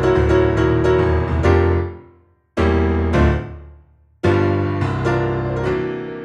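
Piano music played as background: rhythmic chords that die away about two seconds in, two single struck chords left to ring, then the playing picks up again a little past four seconds.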